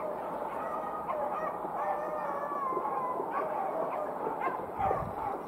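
Beagles baying on a rabbit's scent trail: several long, wavering howls overlapping one another. A low bump sounds near the end.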